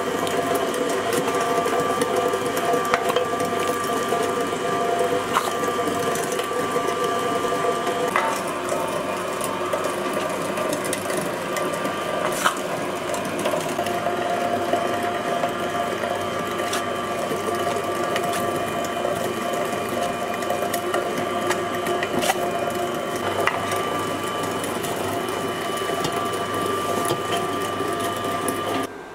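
Electric meat grinder running steadily while grinding pork, a steady motor whine with a few light clicks; its tone shifts a little about eight seconds in.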